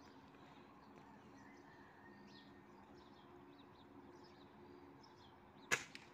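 A single sharp crack from a Norica 56 air rifle being fired, about three-quarters of the way through. Before it, only faint scattered bird chirps over a faint steady low hum.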